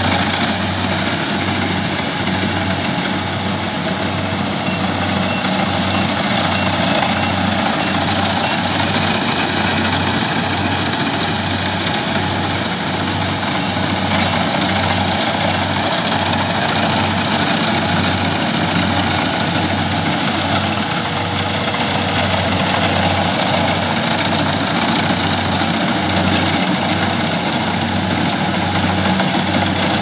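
Kubota DC70Plus rice combine harvester running steadily under load, its diesel engine and machinery working as it cuts and threshes rice, with a steady low pulsing hum.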